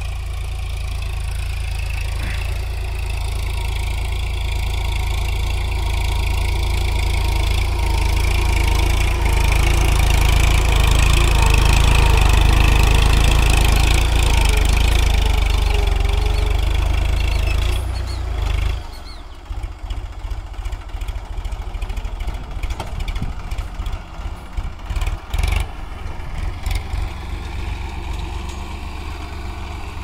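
Massey Ferguson 9000 tractor's non-turbo diesel engine working under load as it pulls a plough through hard soil, growing steadily louder as it comes closer. About two-thirds of the way in the sound drops suddenly and turns choppy and uneven.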